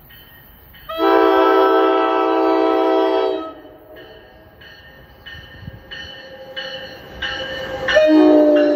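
NJ Transit push-pull commuter train arriving, its multi-note chime horn sounding one long blast about a second in and a second blast near the end. Between the blasts its bell rings steadily, growing louder as the train draws near.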